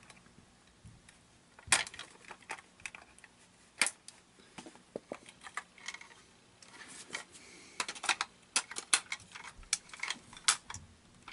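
Irregular plastic clicks and knocks from the opened housing of a Gemmy Johnny the Talking Toilet animatronic being handled. A few isolated clicks come first, then a denser run of them near the end.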